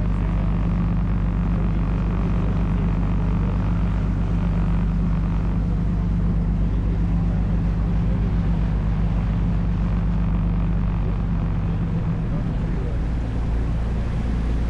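Sightseeing boat's engine running steadily, heard on board as a low hum with a steady drone; the engine note changes about twelve seconds in.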